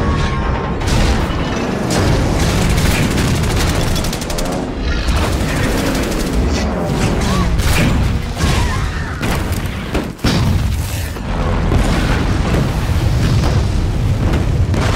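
War-film battle scene soundtrack: dense, continuous explosions and gunfire with music underneath, briefly dropping out about ten seconds in.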